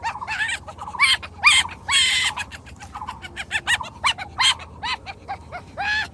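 Many short bird calls in quick succession, several a second, each arching up and down in pitch.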